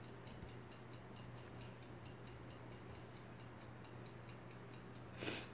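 Quiet room tone: a low steady hum with faint, evenly spaced ticking, and a brief rustle near the end.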